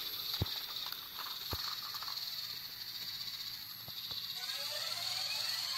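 Battery-powered toy train engine's small motor and plastic gears whirring steadily on plastic track, with two sharp clicks in the first second and a half.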